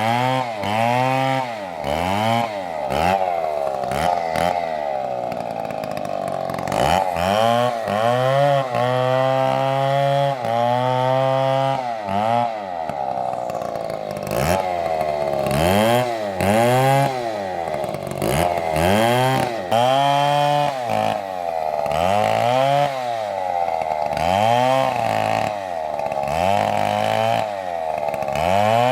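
Stihl MS720 chainsaw engine running hard and revving up and down over and over, its pitch rising and falling about once a second, with a few stretches held steadier.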